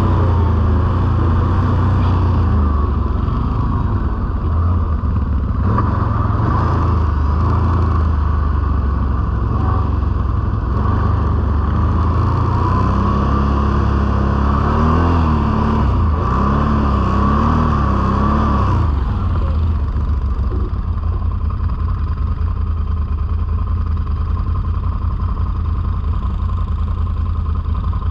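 Can-Am Outlander ATV engine running steadily, its note wavering up and down for a few seconds around the middle.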